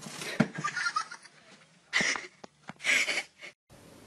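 A bin lid clattering with a knock as a kitten falls into the round bin, followed by a person laughing in two short bursts.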